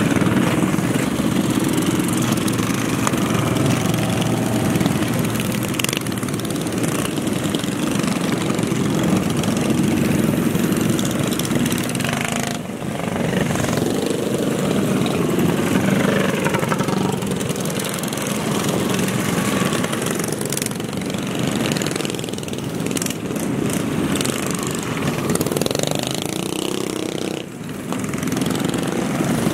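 A stream of mini bikes' small engines running together as they ride past, several overlapping engine notes rising and falling as riders blip the throttle.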